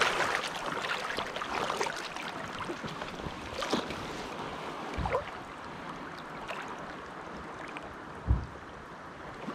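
Steady rush of the Kenai River's current flowing and lapping around a wading angler close to the water surface, with a couple of brief low thumps.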